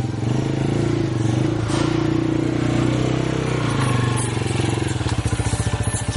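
Small motorcycle engine pulling a canopied passenger carriage (a tuk-tuk) running steadily, then dropping about five seconds in to a slower, pulsing idle.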